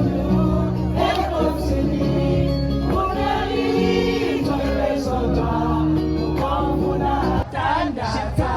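Background music: a song with singing voices over sustained chords, with a brief dip about seven and a half seconds in.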